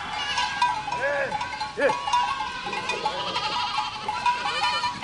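A herd of goats bleating, many overlapping calls at once.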